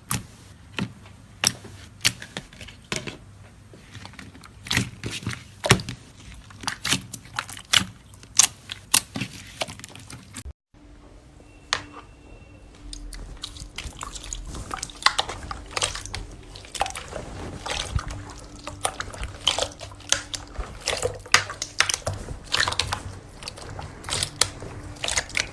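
Hands squishing and stretching slime: sticky wet clicks, pops and crackles at an uneven pace. About ten seconds in the sound breaks off and a second clip of the same kind begins, with a faint steady hum under it.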